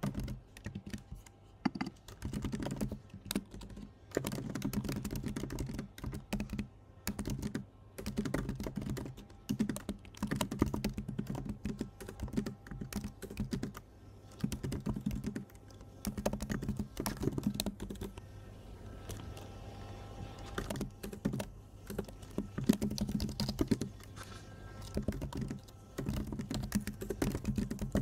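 Typing on a computer keyboard: quick runs of key clicks in bursts, broken by short pauses, with a quieter spell a little past the middle.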